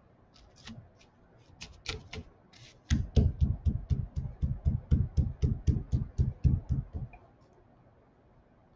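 A hand pounding a block of moist clay flat on a cloth-covered table. A few light slaps and taps come first, then about three seconds in a quick, even run of dull thuds, about five a second, which stops about seven seconds in.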